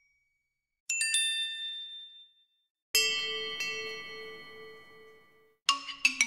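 Stock smartphone notification chimes played one after another with short silences between. A short bright bell-like chime comes about a second in, then a longer chime with a pulsing low tone rings out for over two seconds, and near the end a quick run of mallet-like notes starts a ringtone.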